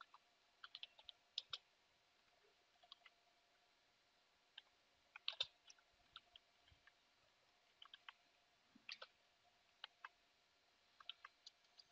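Faint computer keyboard keystrokes as a command is typed: scattered, irregular clicks, with a short pause about a third of the way in.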